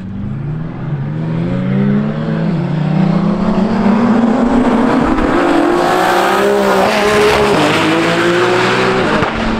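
Race car engines accelerating hard, the pitch climbing steadily and dropping back at gear changes, about two and a half seconds in and again near seven seconds, growing louder as the cars come on.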